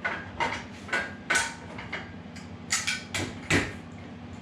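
A series of sharp clunks and knocks as the fence and extension table of a dry-cut tile saw are handled and set in place, with about eight separate knocks over the few seconds.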